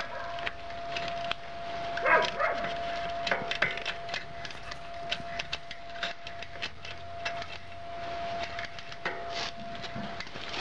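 Newly fitted bicycle chain running over the rear sprockets and derailleur of a 21-speed drivetrain as the crank is turned, with irregular clicking and rattling. The chain is being test-run after its quick link was fitted.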